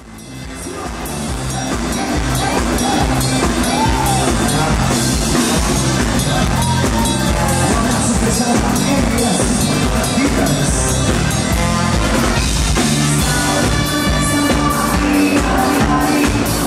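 Band music with a steady drum beat and a singing voice, fading in over the first couple of seconds.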